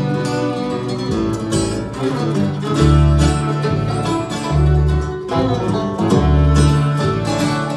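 Live bluegrass band playing without vocals: banjo, mandolin and acoustic guitar picking over fiddle and upright bass, with the bass's low notes standing out every second or two.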